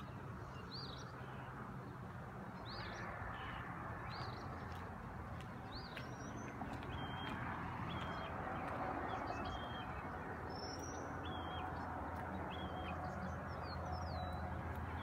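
Birds chirping outdoors, short calls repeating about once a second: rising-and-falling chirps at first, then flatter, lower calls from about halfway. Underneath runs a steady low hum.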